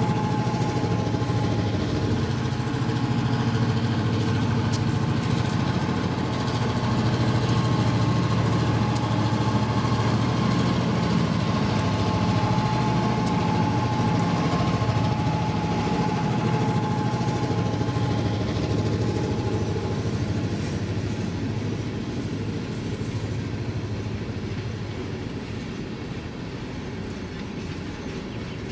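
HO scale model diesel switcher locomotives running on the layout track, giving a steady mechanical running sound with a thin steady whine. The whine stops about two-thirds of the way through, and the sound then slowly fades.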